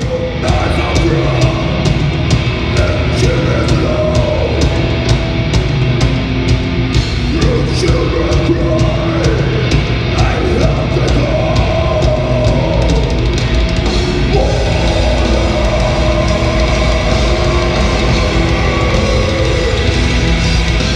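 Black metal band playing live at full volume, dense and heavy, with sharp regular hits about three times a second through roughly the first seven seconds.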